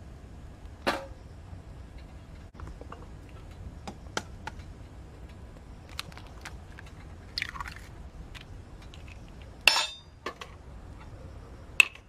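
Twigs burning in a small stainless-steel folding wood stove: irregular sharp crackles and pops over a steady low rush of flame, with the loudest pops near the end. A metal clink about a second in as a stainless pot is set down on the stove's wire grill.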